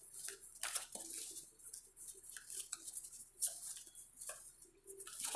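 Tarot cards being shuffled and handled: irregular crisp flicks, slaps and rustles of card stock.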